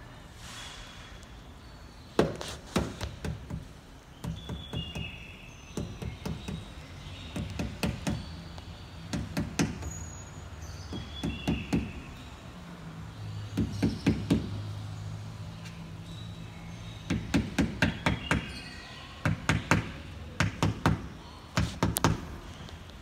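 Rubber mallet tapping a rubber edge-guard strip onto the edge of a car door: runs of quick, light knocks, several taps at a time, with short pauses between the runs.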